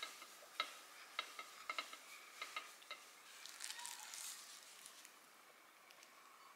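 A quick run of light clinks as a ceramic plate and glass mug are handled and set down on a table, then a brief crinkle of plastic wrap as a wrapped sandwich is picked up.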